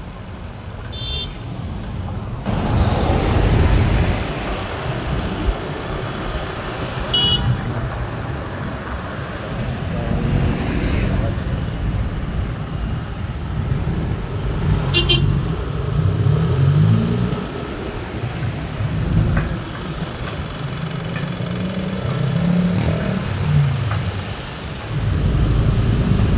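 Motorcycle ride through night city traffic: engine and passing cars under a heavy low rumble of wind on the microphone, with a car horn tooting faintly now and then.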